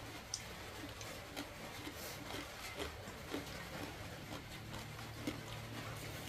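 Chopsticks and bowls clicking and tapping at a meal: scattered light clicks at uneven intervals over a faint low hum.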